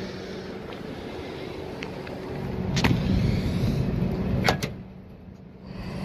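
Footsteps crunching on rooftop gravel over a steady low mechanical hum, with a few sharp clicks around the middle.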